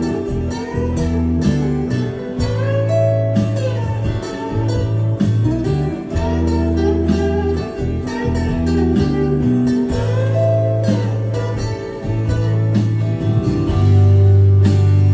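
Guitar music with strong, deep bass notes, played back through a Devialet Dione soundbar.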